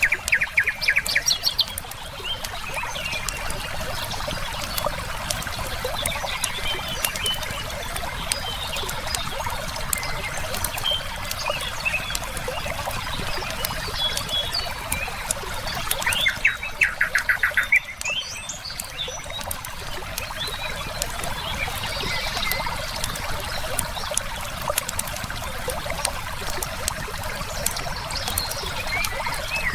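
A river flowing steadily, with a wood fire crackling in scattered sharp pops and small birds chirping. A bird's rapid, pulsed trill rings out twice, once right at the start and again a little past the middle, each lasting about a second and a half.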